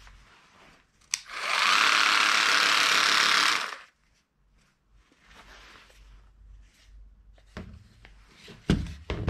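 A handheld power tool runs steadily for about two and a half seconds, starting just after a click and stopping abruptly. Then come light knocks and handling of workpieces, with a sharper knock near the end.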